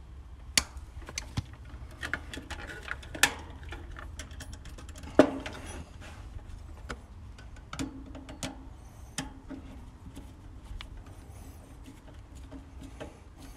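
Hand tools and stiff copper wire being worked at the contactor terminals of an AC condenser: scattered sharp clicks and snaps from pliers and a screwdriver as the wires are bent into place and the terminal screws are tightened. The loudest snap comes about five seconds in.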